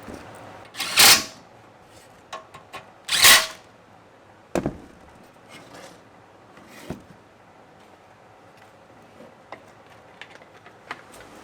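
Workshop handling noise from tools and car parts: two short loud rushing bursts about two seconds apart, then a sharp knock and scattered lighter clicks and taps.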